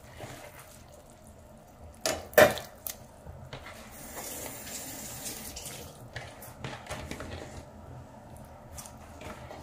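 Water bubbling in a stainless-steel pot with freshly added chicken pieces, with small splashes and pops throughout. Two loud, sharp sounds come about two seconds in.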